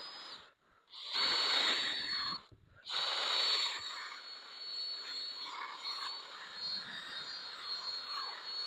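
Electric polisher running with a steady high whine and a scrubbing hiss as its pad works heavy-duty compound into an oxidized headlight lens. It stops twice for about half a second in the first few seconds, then runs on steadily.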